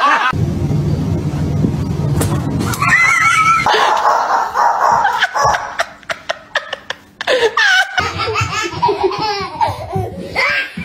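People laughing in repeated bursts. A low rumbling noise fills the first few seconds.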